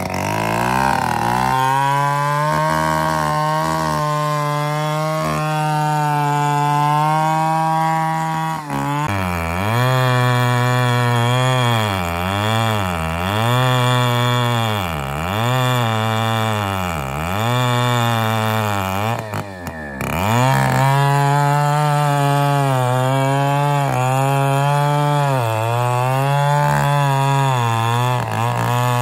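Two-stroke chainsaw cutting into the base of a large, very old dead trembesi trunk. It holds steady high revs, then for about ten seconds in the middle the engine pitch dips and recovers roughly once a second as it bogs under load in the hard wood, and then it runs steady again.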